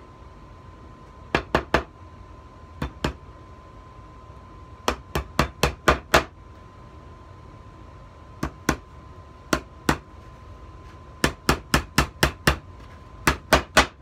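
Small hammer tapping brass nails into pre-drilled pilot holes in a pine tray top: about two dozen sharp taps in short runs of two to six, with pauses between.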